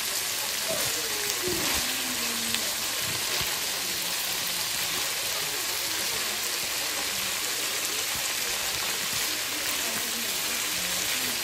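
Potato chunks and sliced onions sizzling steadily in hot oil in a frying pan, with a few light knocks of a utensil stirring them.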